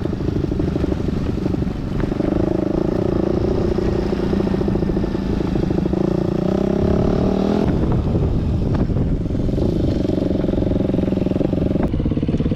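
Enduro motorcycle engine running while riding off-road, its note shifting with the throttle, with a change in revs about seven to eight seconds in.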